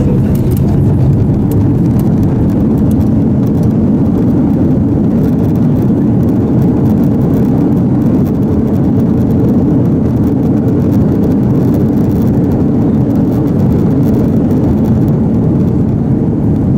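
Airbus A330-300 braking on the runway just after touchdown, heard inside the cabin: a loud, steady rush of jet engine and rollout noise, with the wing spoilers raised.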